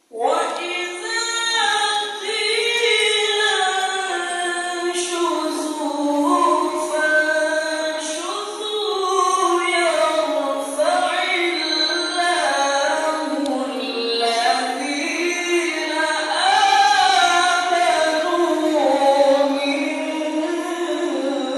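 A male qari reciting the Quran in melodic tilawah style into a microphone. It starts suddenly and runs as one long phrase of held notes that glide and turn up and down in pitch.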